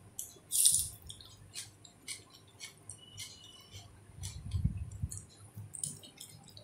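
Wet eating sounds of a person eating rice and chicken curry by hand: a string of short sharp mouth clicks as she chews. There is a louder hissing slurp about half a second in and a low thump about four and a half seconds in.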